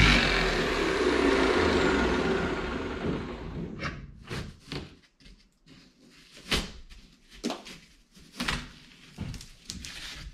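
A power tool running and then winding down, its whine falling away over the first few seconds, followed by a series of separate knocks and thumps as the cut-out panel of the S280 shelter wall is worked loose and pushed out.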